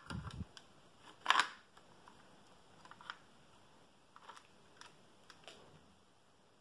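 Plastic Lego bricks knocking and clicking as a brick-built magazine is pushed into a Lego rifle model: a dull knock at the start, one sharp click about a second and a half in, then faint scattered clicks as the model is handled.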